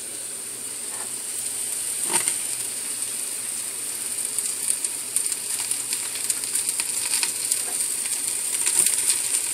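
Sliced cremini mushrooms sizzling in hot olive oil in the stainless steel inner pot of an electric pressure cooker on its sauté setting. A steady hiss with scattered light crackles, growing slightly louder.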